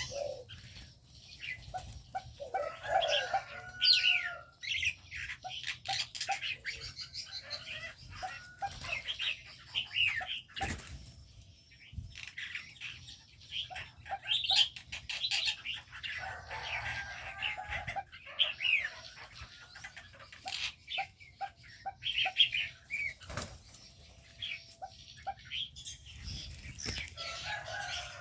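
Aviary birds chirping all through, many short, quick notes, some falling in pitch, with wings flapping and scattered sharp clicks in between.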